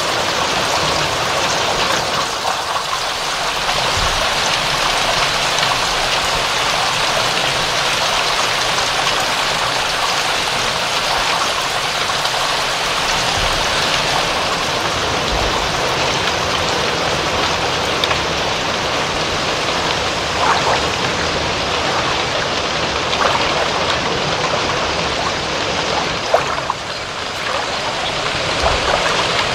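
Steady rain falling in an even hiss, with a few sharper individual drops in the second half.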